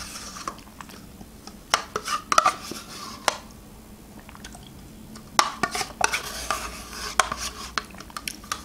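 A metal teaspoon scraping and clicking against a thin plastic yogurt cup as yogurt is scooped out. The clicks come in two quick spells a few seconds apart.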